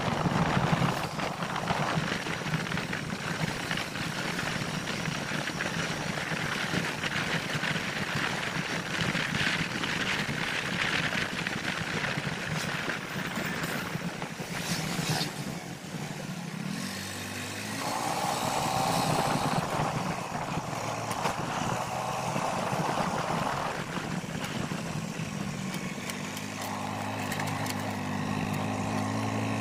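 Motorcycle running under way, heard from the rider's seat, with wind and road noise. Its steady low engine hum comes through more clearly near the end.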